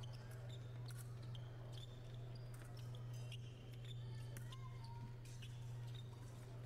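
Faint steady low hum with scattered light taps and brief high squeaks.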